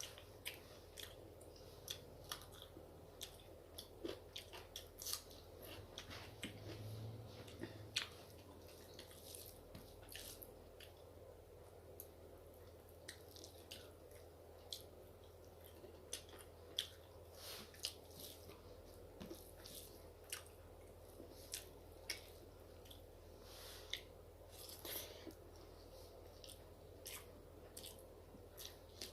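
A person chewing and eating close to the microphone: a stream of soft, irregular wet mouth clicks and smacks, over a faint steady hum.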